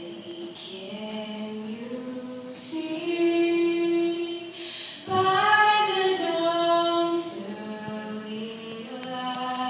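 A solo female voice singing the national anthem unaccompanied, holding long sustained notes.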